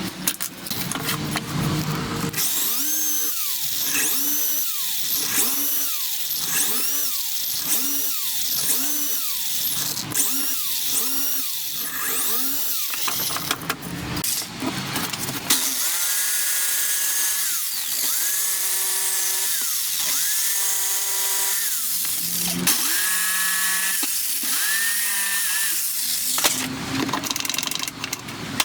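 Handheld power tool, likely a drill, running under load in repeated short bursts, its whine rising and falling with each stroke. Later it settles into steadier runs of a second or two each with brief breaks.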